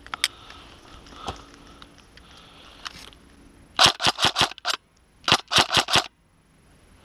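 Airsoft rifle, a Tokyo Marui HK416, firing two quick strings of about six shots each, with half a second between them. Each shot is a sharp crack.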